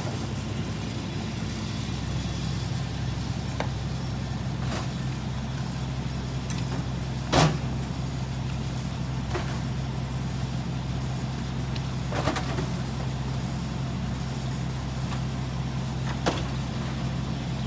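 Mack LE garbage truck's diesel engine idling steadily, with a handful of knocks and thuds as cardboard boxes and other bulk items are tossed into the McNeilus rear-loader hopper; the loudest thud comes about seven seconds in.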